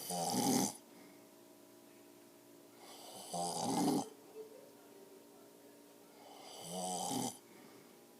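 Elderly man snoring heavily: three loud snores a little over three seconds apart, each building up over a fraction of a second and then stopping sharply.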